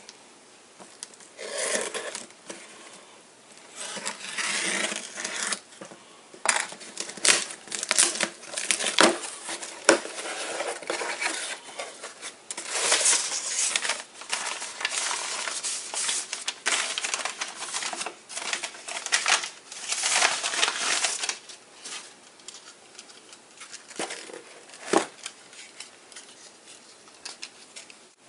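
A mailed package being opened by hand: bouts of packaging rustling and crinkling, with some tearing and small sharp knocks and clicks as the contents are handled.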